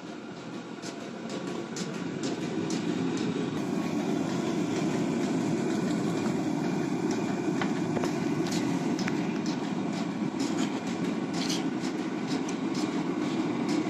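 Gas forge burner running with a steady rushing noise, swelling over the first couple of seconds and then holding, while a steel billet heats in the flame; scattered sharp crackles and pops sound over it.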